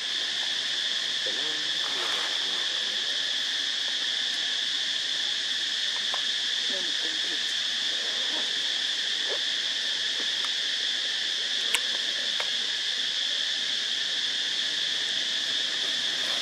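Steady, unbroken high-pitched insect chorus droning in the forest, with one sharp click about twelve seconds in.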